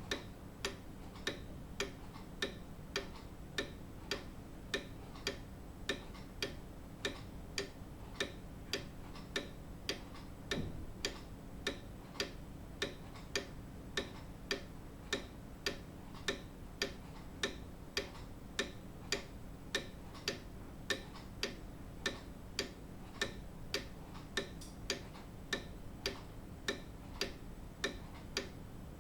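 Grandfather clock ticking: an even, steady tick-tock, a little under two ticks a second.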